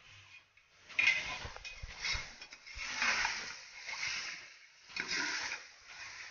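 Metal spatula scraping and clinking against the inside of a metal pressure cooker as chopped tomatoes and onions are stirred in oil, in uneven strokes about once a second with a few sharp clicks.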